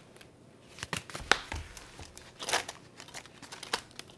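Hands handling a cash-budget binder on a stone countertop: a few knocks and clicks, the loudest about a second in, then a burst of plastic crinkling a little past halfway as the binder is opened and its envelope pages are handled.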